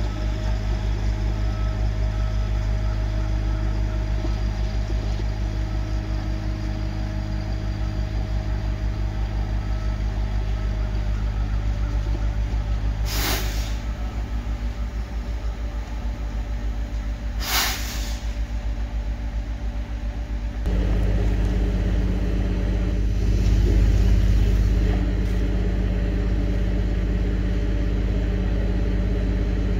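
Cog railway locomotive's engine running steadily at idle, a deep, evenly pulsing drone. Two short hisses of air come about four seconds apart near the middle. About two-thirds through, the drone suddenly becomes louder and fuller.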